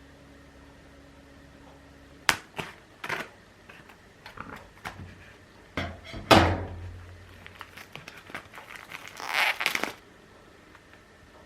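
A steady appliance hum cuts off with a sharp click about two seconds in. Knocks, thuds and handling clatter follow, the loudest a little past the middle, then a short hiss near the end.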